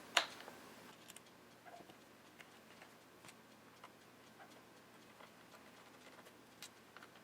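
Faint, scattered small clicks and ticks of a Phillips screwdriver working the tiny bottom-case screws out of a MacBook Pro and the screws being set down, with one sharper click just after the start.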